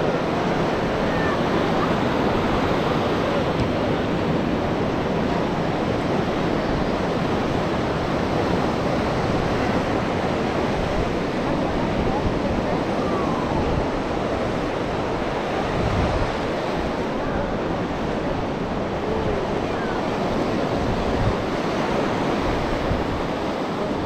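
Sea surf washing onto the beach: a steady rushing noise, with wind gusting on the microphone.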